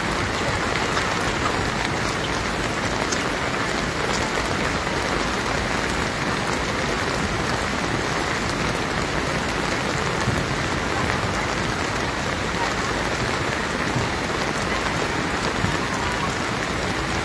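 Heavy rain falling steadily on a wet paved road, a constant hiss with no letup.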